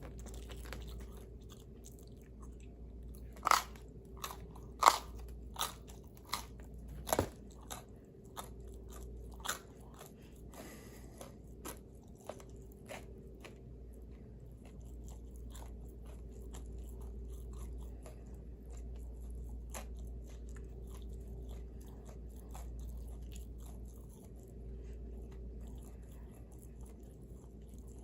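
Close-miked eating of pizza: crunchy bites and chewing, with a cluster of sharp crunches in the first ten seconds, the loudest about three and a half and five seconds in, then quieter chewing, over a steady low hum.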